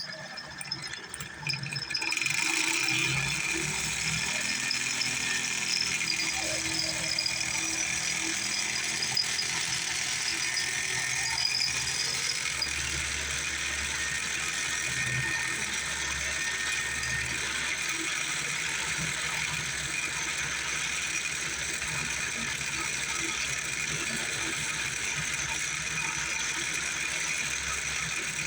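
Small homemade metal lathe driven by an old AC sewing machine motor, running steadily at part speed on an AC voltage controller with a mechanical rattle. It gets louder about two seconds in.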